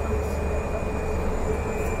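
Cessna Caravan's Pratt & Whitney PT6A turboprop engine running steadily, heard from inside the cockpit: a low drone with steady whining tones over it.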